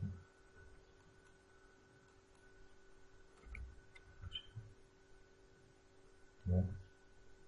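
Faint steady electrical hum, with a few soft keyboard taps and mouse clicks about three and a half to four and a half seconds in, as values are typed into a software dialog. A short murmur from a voice comes near the end.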